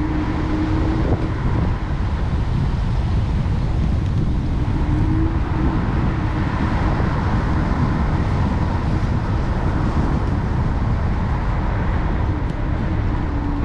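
Steady wind rumble on the microphone while riding a battery-powered vehicle, with a thin motor hum that comes in briefly at the start and again about five seconds in.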